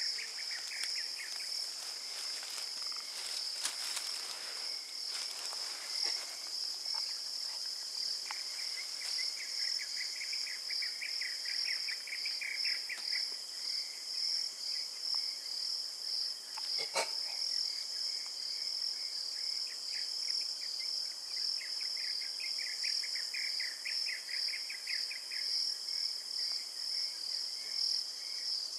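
Forest insects chorusing: a steady, pulsing high-pitched trill throughout. A second, lower rapid trill swells and fades twice, around 10 s and 22 s in. A single sharp click sounds about 17 s in.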